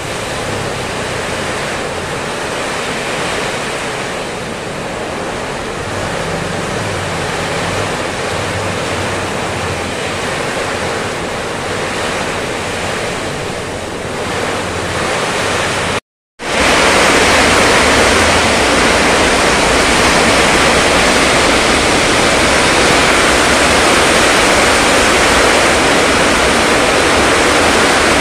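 Heavy rain pouring down in a windstorm, a loud, steady hiss of downpour. It cuts out for a moment just past halfway, then comes back louder.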